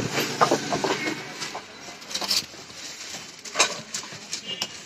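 Scattered sharp clicks and knocks over a steady hiss, with faint voices in the first second.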